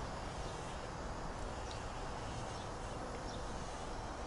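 Quiet outdoor garden ambience: a steady faint hiss with a few faint, short bird chirps.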